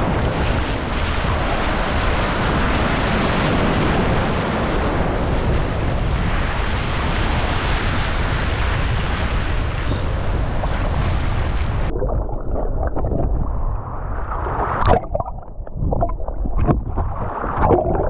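Wind buffeting the microphone over surf washing across the rocks, a steady loud rush. About twelve seconds in it changes abruptly to muffled underwater sound: dull sloshing and a few knocks.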